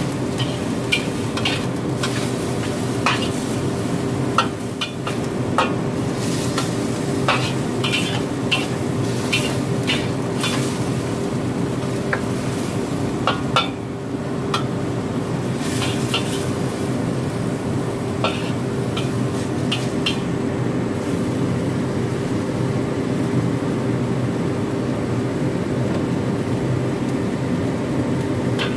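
A spatula scraping and knocking against a wok while chicken breast and chives are stir-fried, over steady sizzling. The knocks come often for about the first twenty seconds, then mostly the sizzling carries on, with a steady low hum underneath.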